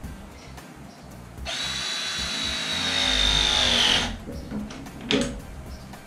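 Handheld cordless power tool motor running with a steady high whine for about two and a half seconds, starting about one and a half seconds in and dropping in pitch as it winds down. A couple of sharp clicks follow about a second later.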